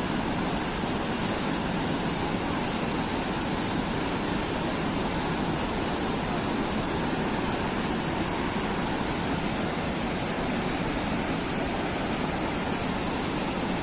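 Steady, even rush of river water pouring through the opened gates of a river barrage.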